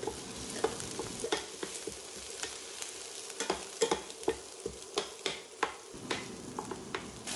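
Sliced shallots, dried red chillies and dals sizzling in oil in a stainless steel pot, a steady frying hiss, while a spatula stirs them, scraping and clicking against the pot at irregular moments.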